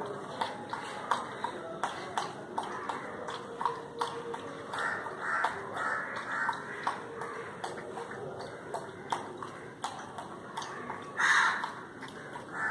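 Dog lapping water from a plastic tray: a run of quick wet laps and clicks at an uneven pace. A louder short burst comes about 11 seconds in.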